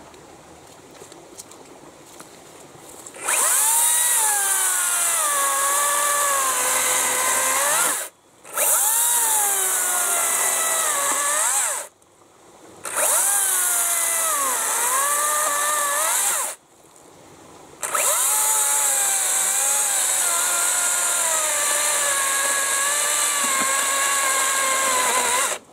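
Makita 36 V (twin 18 V battery) brushless chainsaw cutting through a fallen log about a foot across. It runs in four long bursts with short breaks between them. Its electric whine dips in pitch as the chain bogs down in the wood and climbs back up.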